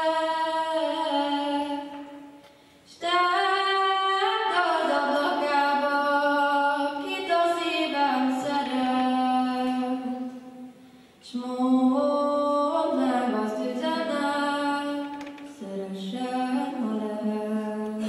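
A woman singing a Kalotaszeg Hungarian folk song unaccompanied, in long drawn-out phrases with held notes and ornamented glides, broken by short pauses for breath.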